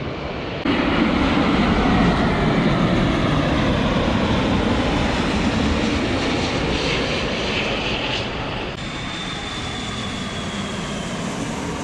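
Jet airliner passing low on its landing approach: a loud, steady jet rush that gets suddenly louder about a second in, with a faint high engine whine sliding slowly down in pitch near the end.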